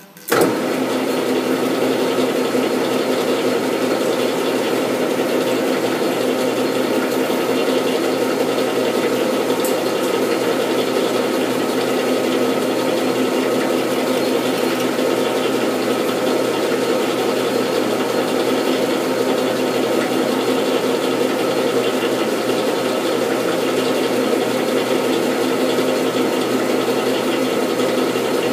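Metal lathe switched on and running steadily, taking a boring cut inside a gear's bore with a boring bar. It starts abruptly just after the beginning and then holds a steady machine hum.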